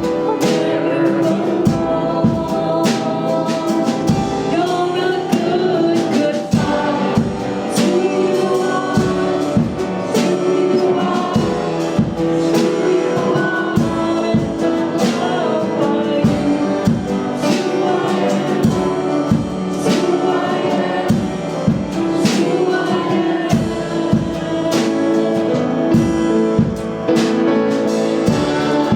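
A live worship song: singing over acoustic guitar and a band, with a steady beat.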